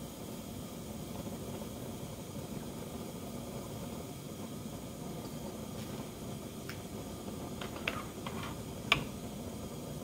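Lit Bunsen burner's gas flame giving a steady rushing hiss under a heating sample. About two-thirds of the way in come a few light clicks, then one sharp click near the end, as metal crucible tongs are handled on the benchtop.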